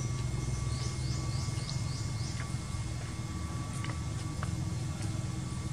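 A bird gives a quick run of about five short, falling chirps about a second in, over a steady low hum.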